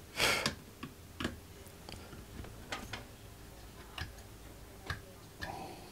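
Scattered light clicks and taps of electronic components and a circuit board being handled on a bench, coming irregularly a second or so apart. A short, louder rushing noise comes just after the start.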